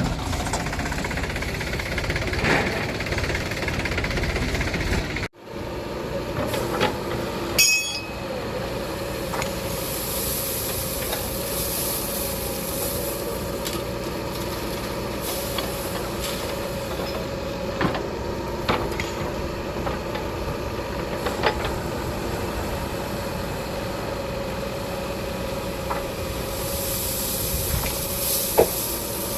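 Diesel construction machinery running steadily, with scattered knocks and clanks. There is a sudden brief break about five seconds in, after which a steady whine is heard over the engine.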